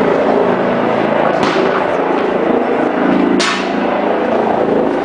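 Continuous drone of a helicopter overhead over loud street noise, broken by two sudden sharp bangs, about a second and a half in and about three and a half seconds in. The second bang has a short hissing tail.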